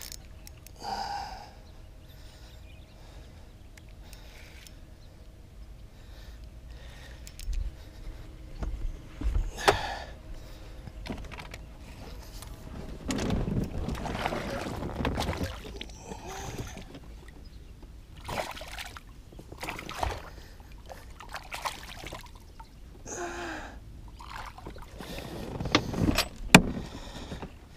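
Scattered knocks, taps and handling noises on a bass fishing boat as a just-landed fish and gear are dealt with, with a few seconds of louder rushing noise about halfway through.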